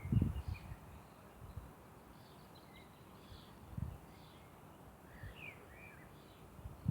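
Small birds chirping faintly now and then, with a couple of low thumps or rustles, one right at the start and one a little past the middle.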